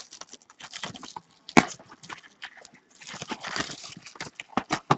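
Packaging of a trading-card box being handled and opened: irregular crinkling, rustling and clicking of wrapper and cardboard, with a sharp snap about one and a half seconds in and a denser rustle a little past the middle.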